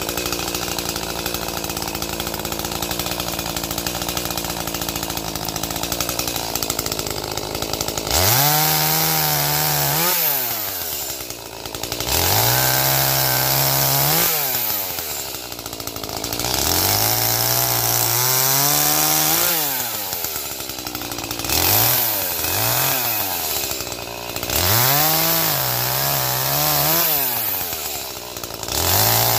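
Chainsaw running steadily for about the first eight seconds, then repeatedly revved up to full speed, held briefly and let back down, about six times, as it cuts firewood.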